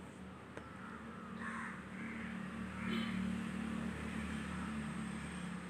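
A crow cawing faintly three times, over a steady low hum.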